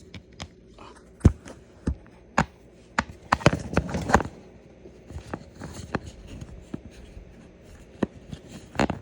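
Scattered clicks, taps and knocks of hands handling a plastic tote latch handle while threading a small nut onto a 6-32 machine screw by hand, with a cluster of clattering about three to four seconds in.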